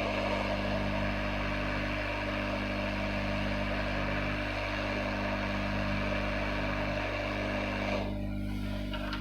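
Steady airy rush of a hot-air rework station blowing over a circuit board to change an IC, with a low electrical hum under it; the air stops about eight seconds in.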